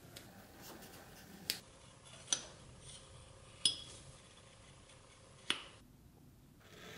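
Small pressed-steel toy parts clinking against each other: four light, separate metallic clicks, two of them with a brief high ring.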